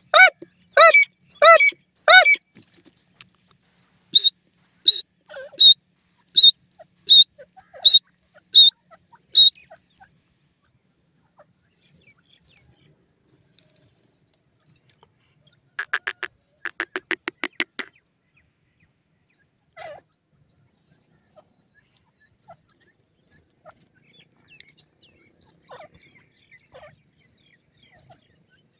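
Grey francolin (Dakhni teetar) calling: four loud, ringing notes in quick succession, then a run of high, piercing notes about one every 0.7 seconds. A fast rattling burst of notes follows about sixteen seconds in, and the rest is faint scattered chirps.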